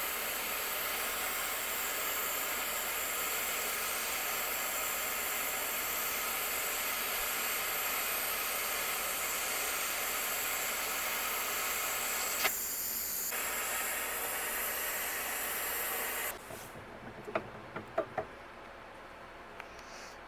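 Jeweller's torch flame hissing steadily while melting silver, shut off abruptly about three-quarters of the way through, followed by a few light clicks.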